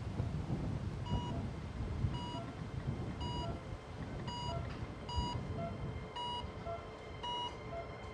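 Hospital patient monitor beeping about once a second, each main beep followed about half a second later by a softer, lower beep, over a low rumble.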